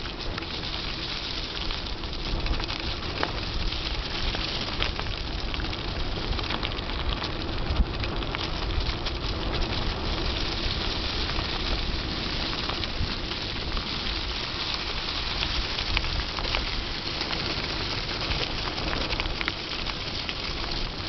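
Mountain bike tyres rolling over a thick layer of fallen autumn leaves: a steady crackling rustle full of small clicks, over a low rumble from the ride.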